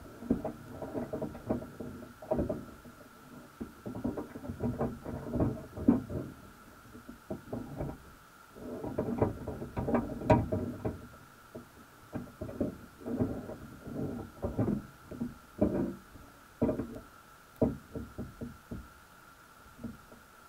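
Underwater sound picked up by a camera inside a submerged crab pot: irregular muffled knocks and rustles, some close together and some a second or more apart, over a steady faint high whine.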